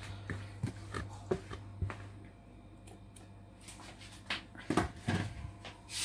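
Light kitchen handling noises: a spatula clicking and scraping against a large metal cooking pot as marinated meat is pressed and spread out in it, with a few louder knocks about four to five seconds in, over a low hum that fades about two seconds in.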